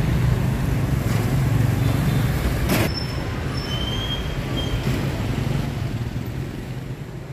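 City street traffic: motorbikes and scooters riding past with a steady low engine hum. A single sharp click about three seconds in, and the sound fades slightly near the end.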